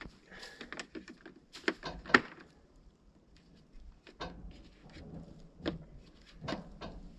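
Irregular sharp knocks, about seven in all, the loudest a little over two seconds in, from hands and tools working on a mini excavator's undercarriage as a broken rubber track is refitted.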